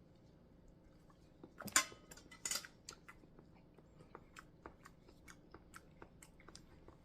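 Close-up eating sounds of seafood: two louder sharp cracks or crunches about two seconds in, then a run of small clicking chewing sounds, a few a second.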